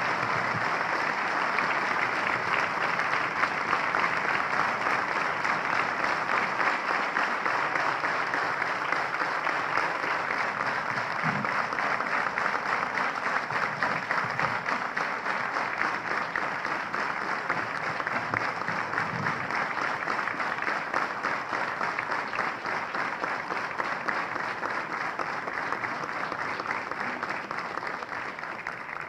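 Audience applauding steadily, a long round of applause that dies away near the end.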